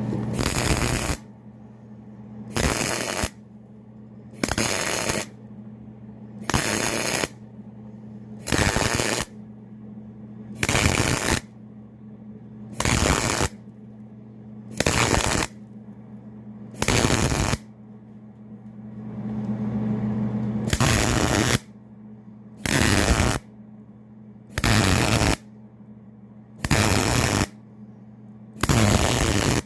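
Electric arc welding in short crackling bursts, each under a second, repeated about every two seconds as a seam is stitch-welded. A steady low hum runs underneath.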